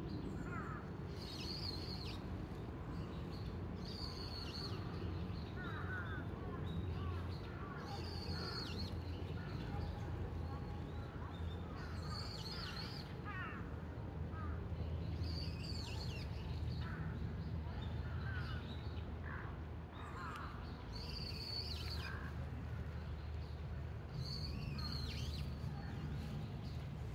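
Birds calling outdoors, short high calls and chirps recurring every second or two, over a steady low rumble.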